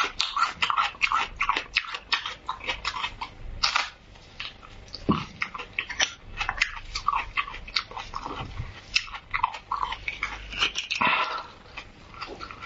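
Close-miked chewing and crunching of raw red onion: many quick, irregular crisp, wet bites.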